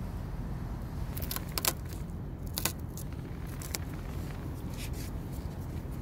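Uncooked rice grains dropped from a hand onto a slatted wooden bench, giving scattered small ticks over a steady low outdoor rumble.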